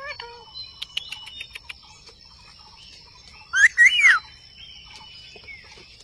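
Indian ringneck parakeets: a few faint clicks and thin tones, then a loud burst of short, sweeping chirping calls about three and a half seconds in.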